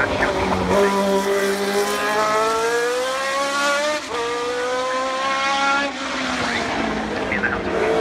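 Cosworth DFV 3.0-litre V8 of a historic Formula 1 car accelerating hard, its pitch rising steadily. The pitch drops abruptly about halfway through, at a gear change, then climbs again before the sound fades as the car pulls away.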